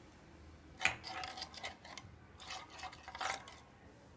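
Ghee being put onto the hot ridged plate of an electric sandwich grill: a sharp click about a second in, then a string of short scraping and clattering sounds.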